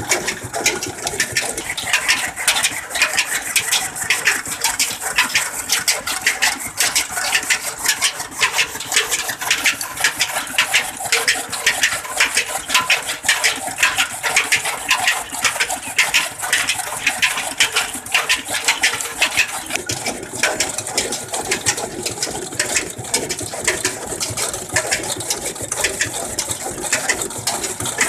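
Belt-driven toka (chaff cutter) chopping green fodder, its flywheel blades clattering in a fast, even rhythm, powered by an old Ruston Hornsby stationary diesel engine running steadily.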